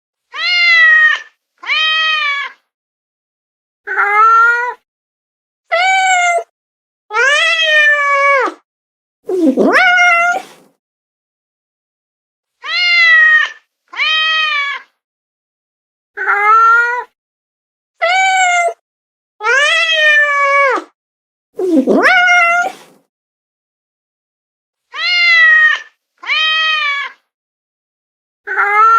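A domestic cat meowing over and over in separate calls about a second long with short pauses between. Twice a deeper call starts low and sweeps upward. The same run of meows repeats, as in a looped recording.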